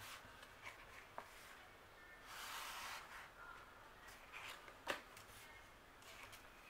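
Faint paper handling: hands sliding over and turning the glossy sheets of a sticker book. There is a soft rustle about two and a half seconds in and a sharp flick of a page near five seconds in.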